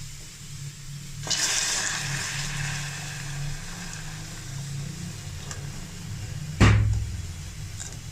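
Milk poured into a pan of hot caramelised sugar: a sudden hiss and bubbling about a second in as the milk hits the caramel, fading slowly, while the sugar sets hard on the bottom of the pan. Near the end, one loud knock.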